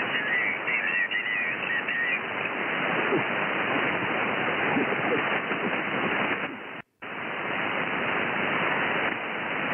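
Yaesu FTDX10 shortwave receiver hissing with band noise in LSB on the 40-metre band, cut off above about 3 kHz by the receive filter. A warbling whistle sits over the hiss for the first two seconds, and the audio drops out for a moment a little before seven seconds in.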